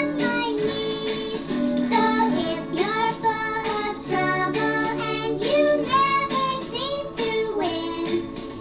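A recorded pop song playing: sung vocal lines over an instrumental backing.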